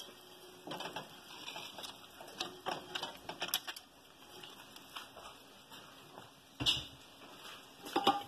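A wooden spoon spreading boiled rice in a large metal pot: soft scrapes and light clicks, with two louder knocks against the pot near the end.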